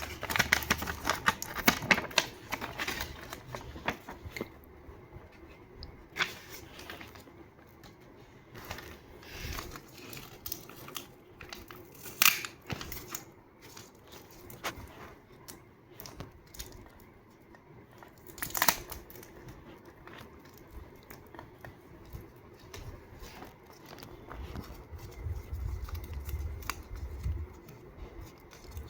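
Scissors cutting paper, with paper rustling and crinkling as it is handled: a quick run of snips for the first few seconds, then scattered single sharp snips.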